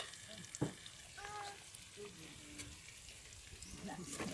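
Faint sizzling from a pot of chopped tomatoes and onions cooking over a wood fire. There is a single light tap about half a second in, and soft scraping near the end as sliced beef skin is spooned from a plastic tub into the pot.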